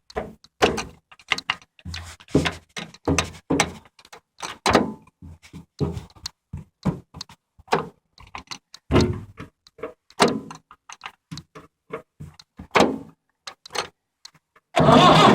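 A run of irregular clicks, clunks and knocks from a Massey Ferguson 265 tractor's levers and controls being worked. Near the end the tractor's engine starts and keeps running loudly.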